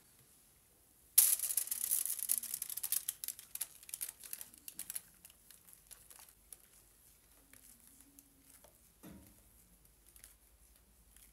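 Batter being poured into a foil-wrapped steel cake ring, with a crinkling, crackling sound that starts suddenly about a second in, dense and loud at first, then thinning to scattered clicks.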